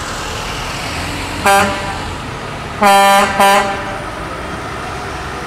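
A vehicle horn honking three times: a short toot, then a longer blast followed quickly by a short one. Under it, the steady running of cars and trucks driving past.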